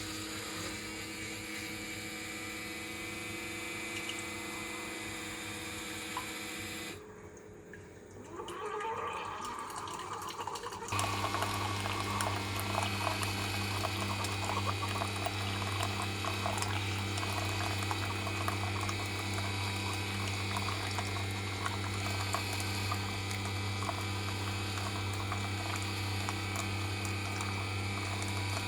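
Coffee maker brewing: a steady machine hum, a brief dip with a short rising whine, then from about eleven seconds a louder, deeper pump hum as coffee pours and trickles into the cup.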